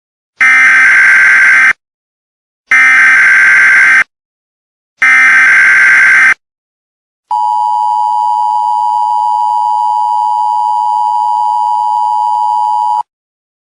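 Emergency Alert System alert tones: three loud bursts of SAME header data, about a second apart, then the two-tone 853/960 Hz EAS attention signal held steady for about six seconds and cutting off abruptly.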